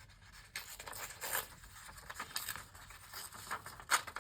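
Paper being handled: a book page rustling and scraping in short, irregular scratchy bursts, with a sharp click near the end.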